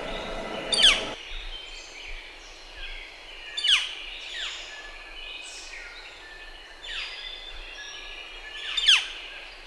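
Northern flicker giving loud, sharp calls that drop in pitch, three strong ones spaced a few seconds apart, with fainter downslurred calls between them. A noisy background hum cuts off about a second in.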